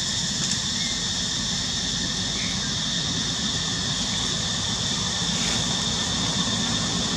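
Steady outdoor background noise: a constant low rumble with a steady high-pitched buzzing drone above it, and no clear animal calls.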